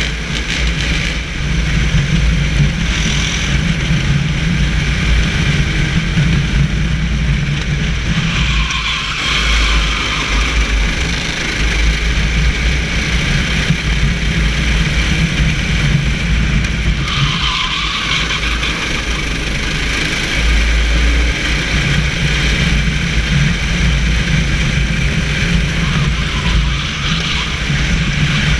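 Onboard sound of a racing kart being driven at speed on a wet track: the kart's engine running under load, mixed with wind and road noise on the onboard microphone. The mid-range sound swells briefly about nine and seventeen seconds in.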